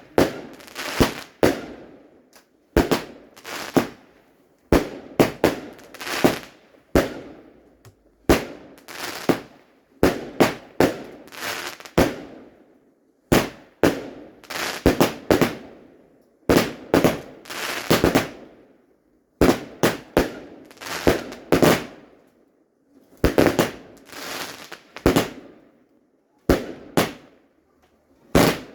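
Fireworks going off: a long run of sharp bangs, often two or three close together, each fading out quickly before the next.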